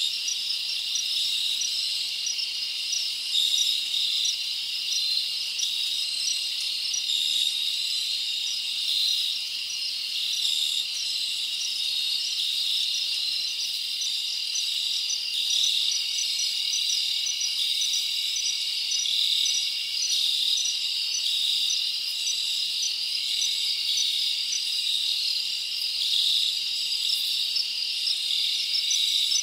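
Steady chorus of chirping insects, high-pitched and continuous, with quick chirps repeating evenly over it.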